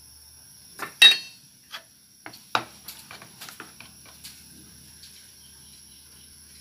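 Kitchen utensils clinking on metal: one sharp, ringing clink about a second in, then a few lighter knocks and a quick run of small taps as a spoon and chopsticks are handled against a stainless steel bowl and a metal spatula. A steady high whine sits faintly underneath.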